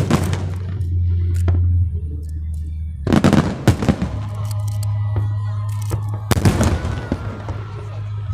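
Fireworks bursting: one bang right at the start, a cluster of bangs about three seconds in and another cluster near the end, each followed by crackling, over background music with a steady bass.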